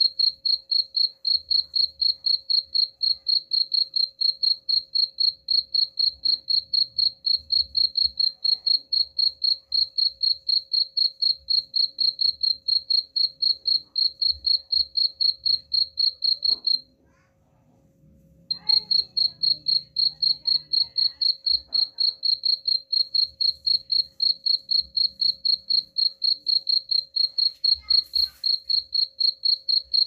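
Cricket chirping: a high, pure, evenly repeated chirp at about three a second, which stops for about a second and a half just past the middle and then picks up again.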